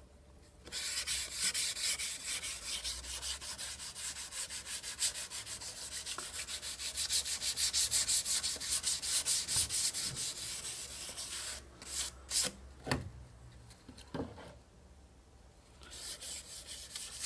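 Hand wet-sanding with 1200-grit wet-and-dry paper wrapped round a felt pad, rubbing back sprayed lacquer on a white UPVC window profile to take off the orange-peel texture. Fast, even back-and-forth strokes start about a second in and stop about two-thirds of the way through. A few separate strokes follow, and the rubbing starts again near the end.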